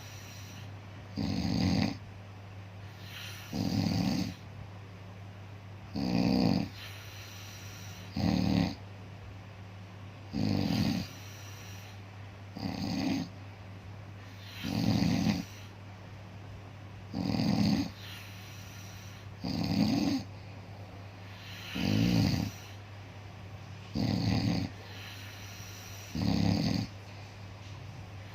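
Steady rhythmic snoring, one short snore about every two seconds, over a constant low hum.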